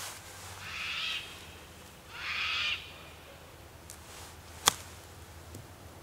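Two drawn-out bird calls in the first three seconds. Then, near the end, one sharp click as a golf iron strikes the ball on a short chip shot from grass.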